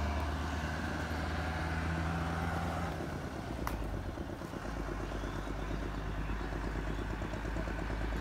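An engine running steadily at idle, a low hum whose pitch shifts down about three seconds in.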